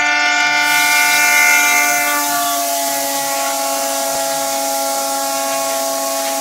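Passenger train horn sounding continuously, its tones sagging a little in pitch about two seconds in, over the rushing noise of the passing train.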